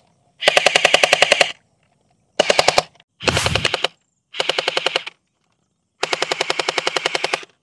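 Electric UMP45 gel blaster firing full-auto in five short bursts of rapid clacking at about ten shots a second. The longest burst, the first, lasts just over a second.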